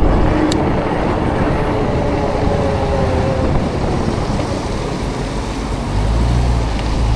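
Riding noise from an e-bike on a wet street in the rain, with wind on the microphone and road traffic around it. A low rumble swells about six seconds in.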